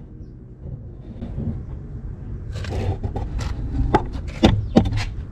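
Scraping and handling noise over a low rumble, with a run of sharp clicks and knocks in the second half, the loudest a little past the middle.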